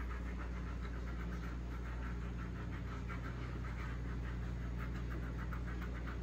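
Wet, soapy skin being scrubbed by hand and with a silicone facial scrubber: quick, irregular rubbing strokes, several a second, over a steady low hum.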